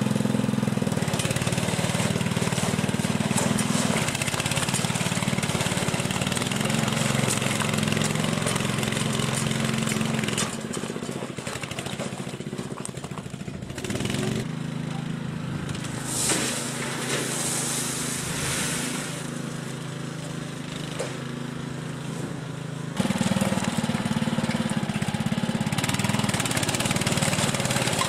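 Small petrol engine of a Muck Truck powered wheelbarrow running steadily. It drops somewhat in level for a stretch about ten seconds in and comes back up near the end.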